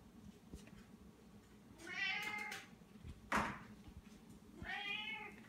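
Domestic cats meowing twice, each a drawn-out meow that rises and falls in pitch, begging at their owner's feet for food. A short sharp clack, the loudest sound, falls between the two meows.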